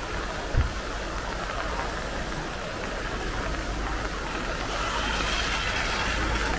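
Floodwater of a stream swollen by heavy rain, rushing in a steady noise that grows louder towards the end, with a brief low thump about half a second in.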